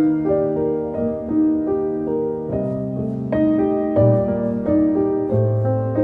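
Background piano music: a run of single notes changing about every half second over held low notes.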